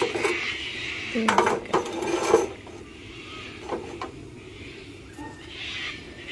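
A frying pan is set down and shifted on the metal pan supports of a portable gas camping stove, with a few quick clanks and scrapes between one and two and a half seconds in, over the steady hiss of the lit burner.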